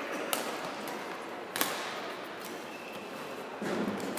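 Two sharp badminton racket strikes on a shuttlecock, about a second and a quarter apart, over steady hall background noise.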